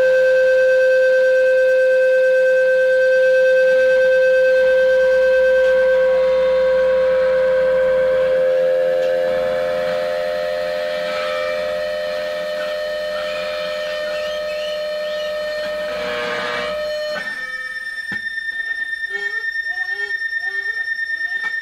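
A loud, steady drone: one low note with many overtones held without change for about seventeen seconds, then a sudden switch to a higher held note that wavers quickly in loudness.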